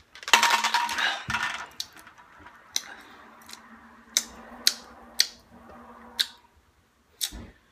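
A man swallows the last gulp from a plastic shaker bottle and breathes out. Then come lip smacks as he tastes the drink: about six sharp clicks spread over a few seconds, and a low thump near the end.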